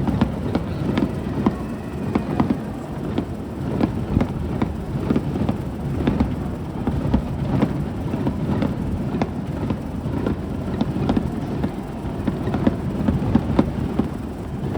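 Fireworks display in full barrage: a rapid, irregular run of booming bursts and sharp cracks over a continuous rumble. It starts suddenly and keeps up throughout.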